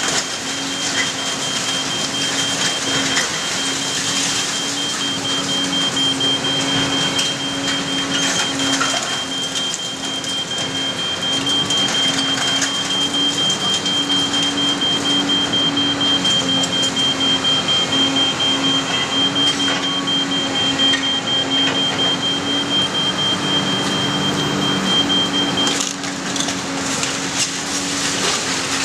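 Komatsu PC350 excavator's engine running steadily while its demolition attachment crunches and tears through broken building framing, sheeting and debris, with scattered cracks and clatters. A high, rapidly pulsing beep runs alongside and stops about three seconds before the end.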